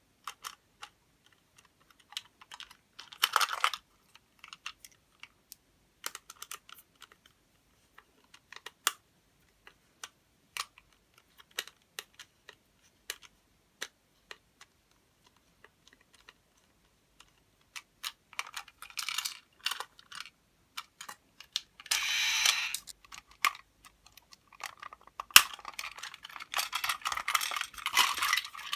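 Scattered small clicks and short scrapes of a screwdriver turning the battery-cover screw on the underside of a Plarail toy train's plastic motor car. Plastic clattering grows denser in the last few seconds as the cars are handled.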